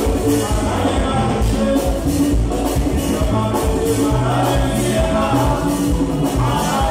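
A live Latin dance band playing: a man singing lead over congas and hand drums, with electric guitar and bass, on a steady driving beat.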